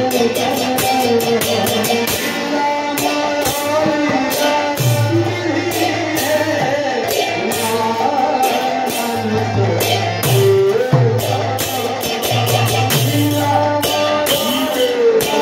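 Devotional kirtan singing: a male voice sings a wavering melody, accompanied by a two-headed barrel drum and metal hand cymbals clashing in a steady rhythm.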